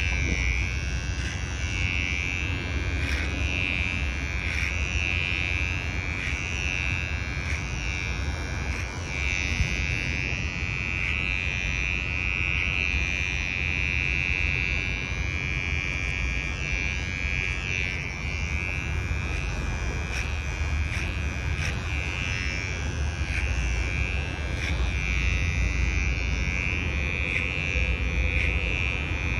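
Cordless hair clipper running through a clipper-over-comb cut on short hair, its whine dipping and recovering every second or two as the blades bite into the hair.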